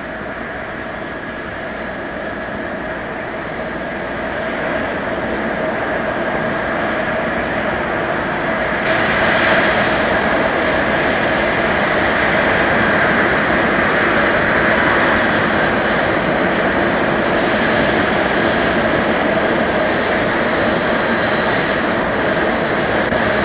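Boeing 747-100's Pratt & Whitney JT9D turbofan engines running, a steady rush with several high whining tones. It grows louder over the first several seconds, and a higher whine joins abruptly about nine seconds in.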